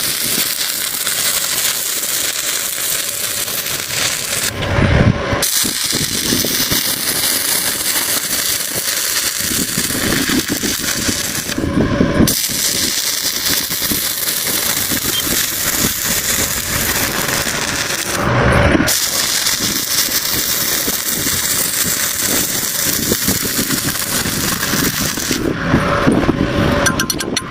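Electric welding arc crackling and sizzling steadily, with three short breaks where the arc stops and restarts.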